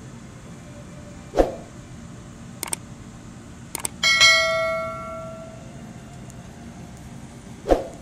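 Subscribe-animation sound effects: two mouse clicks, then a bell ding that rings out and fades over about a second and a half. A split air-conditioner's outdoor unit runs with a steady hum underneath, and a short thud comes once before the clicks and once near the end.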